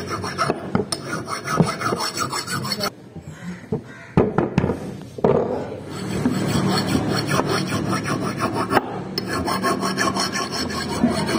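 A flat hand file scraping along the steel edge of an axe head in quick repeated strokes, sharpening the bit. The filing stops for a moment about three seconds in, with a few knocks as the work is handled, then starts again.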